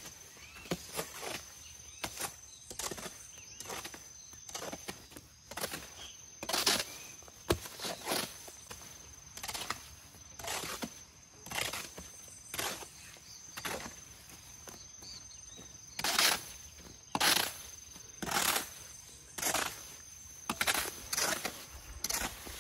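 Hoe scraping and slapping through wet cement mortar on bare ground, mixing by hand in repeated strokes about one a second.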